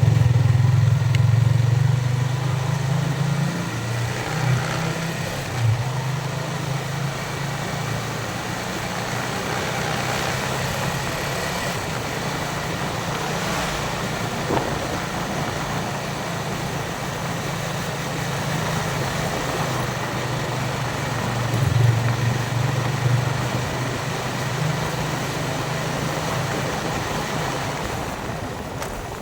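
Yamaha Vixion motorcycle's single-cylinder engine running steadily as the bike is ridden, with wind noise over it. The engine is louder for a few seconds at the start and again about two-thirds of the way through, and eases off near the end.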